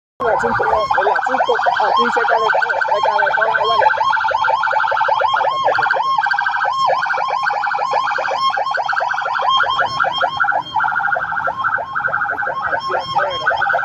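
Ambulance siren sounding close by, its pitch warbling rapidly up and down without a break.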